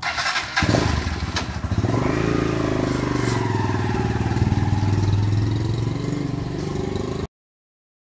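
Small cruiser motorcycle engine starting, then running and revving as the bike pulls away. The sound cuts off suddenly near the end.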